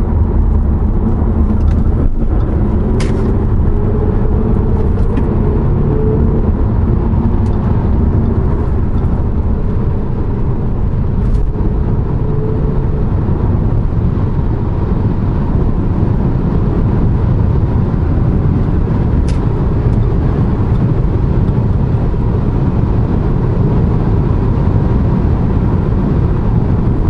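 Steady driving noise inside a diesel car's cabin at highway speed: a low road and engine rumble with a faint steady whine on top. A few light clicks break in here and there.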